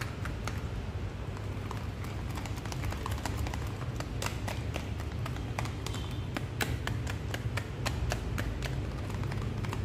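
Metal wire whisk clicking and scraping against a plastic tub as it mashes ripe avocado into a smooth paste: quick, irregular taps.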